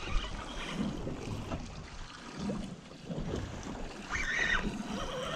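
Wind buffeting the microphone over choppy sea and waves washing against the boat, while a Penn Spinfisher spinning reel is cranked to bring in a hooked fish; a brief higher-pitched whirr comes about four seconds in.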